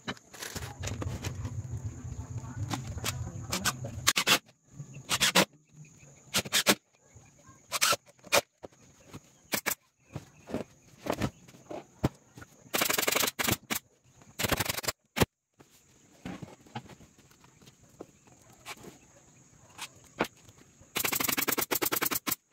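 Cordless impact driver hammering screws into a plywood speaker cabinet in short rattling bursts: a long one at the start, two short ones about halfway, and another near the end. Sharp single clicks and knocks come in between.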